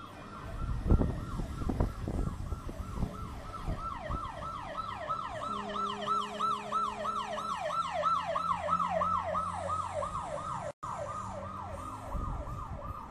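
Police car siren on a fast yelp: rapid falling wails, about three or four a second, repeating without a break, over traffic rumble.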